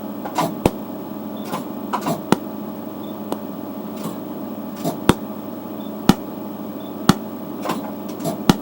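Pulsed Nd:YAG laser firing single shots at a piece of dirt, each pulse a sharp snap, coming about once a second in the second half. A steady machine hum runs underneath.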